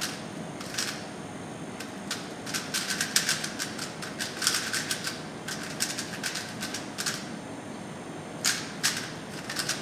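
Rubik's cube being turned rapidly by hand: its plastic layers clack in quick irregular flurries of clicks during a speed-solve.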